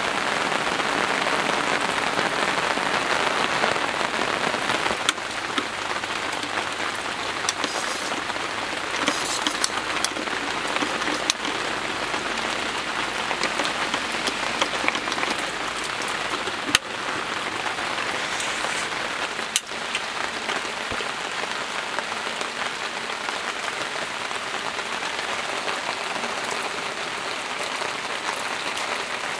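Steady rain falling, with scattered sharper drop hits and one louder tick about two-thirds of the way through.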